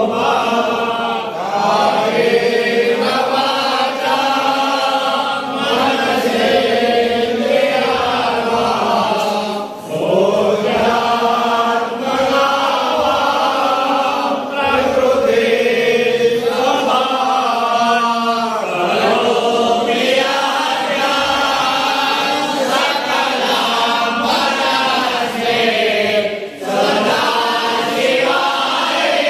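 A group of male voices, men and boys together, chanting a Hindu devotional hymn in unison in a steady, continuous chant, pausing briefly for breath about ten seconds in and again near the end.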